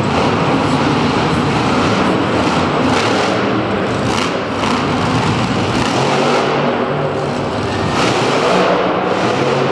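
Monster truck engine running loud and revving hard under throttle, its pitch rising and falling as the truck drives and lifts across the dirt.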